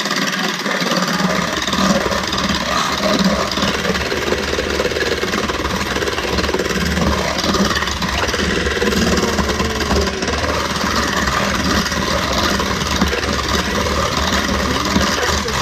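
Electric kitchen mixer running steadily as it beats eggs, its motor hum coming in about a second in.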